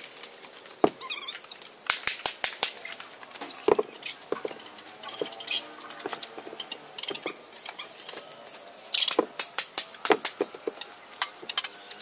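Laterite blocks being set down on bare earth with scattered knocks and scrapes, and footsteps on gritty ground, with quick runs of clicks about two seconds in and again near the end.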